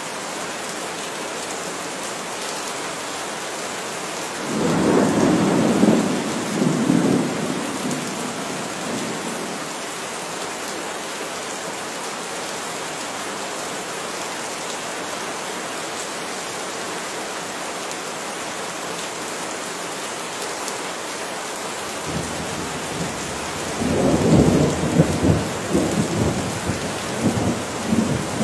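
Heavy rain falling steadily, with two rolls of thunder rumbling over it, one about four seconds in and a longer, crackling one starting near the end.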